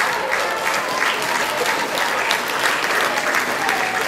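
Audience applauding, a steady mass of handclaps with a few voices mixed in.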